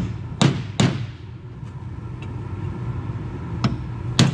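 Hammer striking a steel punch to drive a bearing race into a John Deere 6400 front planetary hub: sharp metallic blows that ring briefly, three close together at the start and two more near the end, over a steady low hum.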